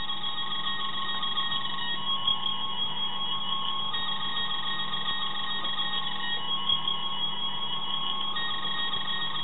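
Sound module of a Star Trek Mark VII medical tricorder replica kit playing its running sound through a small speaker, just after power is applied: layered electronic tones, one of them warbling, with a higher beep that drops out for about two seconds and comes back.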